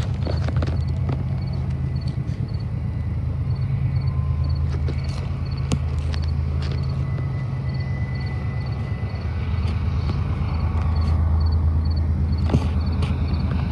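Steady low rumble of a freight train's diesel locomotive engines, heard at a distance, with a few light clicks and knocks.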